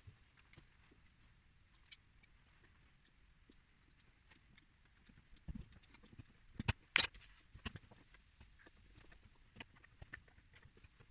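Scattered light clicks and knocks, with a louder run of knocks between about five and a half and eight seconds in.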